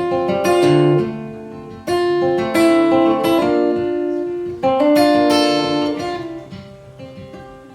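Acoustic guitar playing a solo instrumental passage between vocal lines, with chords struck a few times and left ringing and fading. Near the end the playing dies down.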